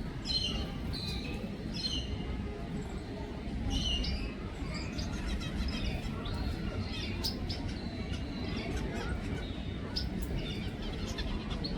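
Gouldian finches chirping: short, high calls at irregular intervals, some in quick little clusters, over a steady low rumble.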